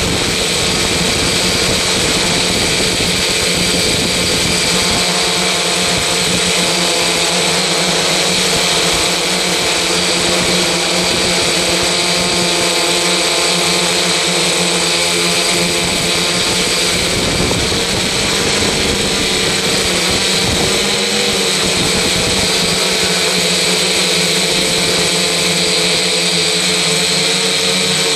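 A machine running steadily, a loud, even whirring noise with a few fixed tones.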